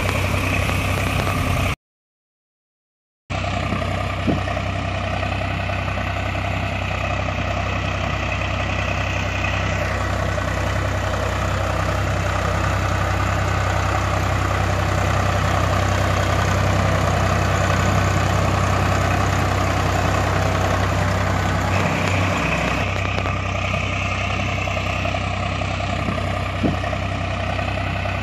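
Tractor engine idling steadily, an engine sound laid over the footage, with no change in pitch or speed. It drops out to dead silence for about a second and a half a couple of seconds in, then resumes unchanged.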